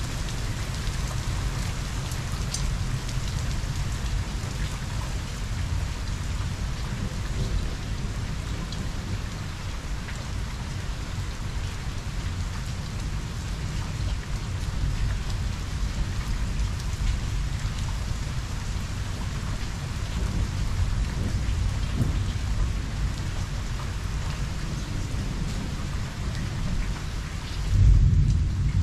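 Steady rain falling during a thunderstorm, with low thunder rumbling underneath. A louder roll of thunder swells about a second before the end.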